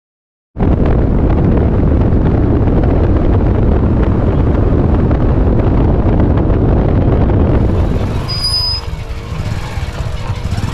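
Wind buffeting the microphone of a camera on a moving vehicle, mixed with road noise: a loud, steady rush. It eases a little about eight seconds in.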